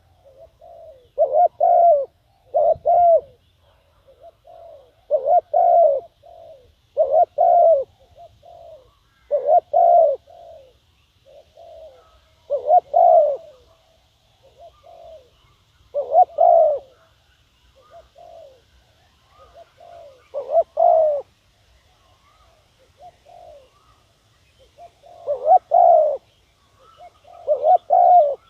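Spotted dove cooing: loud, throaty coo phrases about a second long, repeated every two to three seconds, with fainter coos in between.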